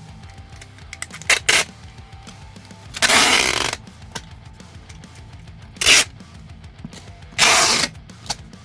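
Several short, harsh rasping noise bursts from packing materials being handled, the longest about three seconds in, over steady background music.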